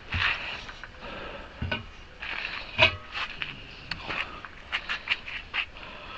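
Irregular knocks, clicks and scrapes of a tire tool working a heavy-equipment tire off its rim, about eight sharp hits spread across a few seconds.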